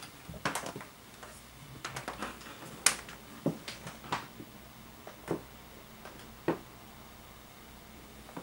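Scattered light clicks and knocks, irregular and roughly one a second, the loudest about three seconds in: movement and handling noises of someone walking through a small room.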